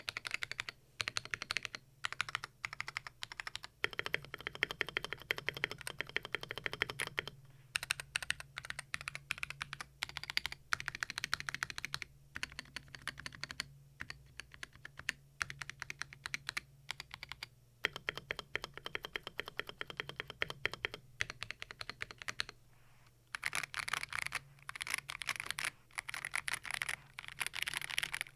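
Typing sound test on a Keydous NJ68 Max mechanical keyboard with Akko CS Ocean Blue tactile switches, its PCB tape-modded, case lined with neoprene and stabilizers modded with a Holee mod on the spacebar. Fast runs of key clacks come in bursts of a few seconds with short pauses between them.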